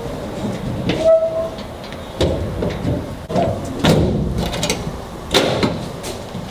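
Truck tailgate being yanked and worked against its hinges: repeated metal clunks and rattles, with about four hard knocks and a short squeak about a second in. The tailgate stays on.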